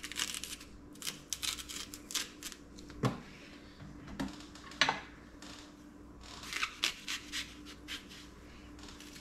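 Kitchen knife cutting and scraping the seeds out of a yellow summer squash: a run of short, crisp slicing and scraping strokes, with a few light knocks.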